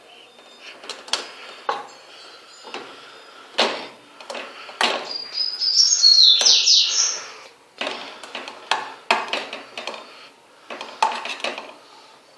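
A utensil knocking and scraping against a pan as cotton is stirred through melted paraffin wax. Birds chirp throughout, with a loud high call about six seconds in.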